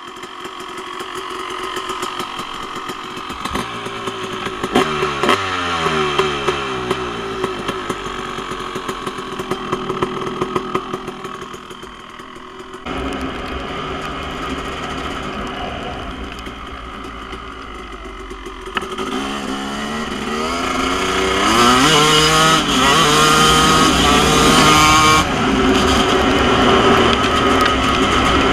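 KTM SX250 single-cylinder two-stroke dirt bike engine, fitted with a Pro Circuit R-304 shorty silencer. It is revved in short rising-and-falling blips at first. About halfway through it is under way, and from about two-thirds in it accelerates hard with the revs climbing several times in a row before holding high.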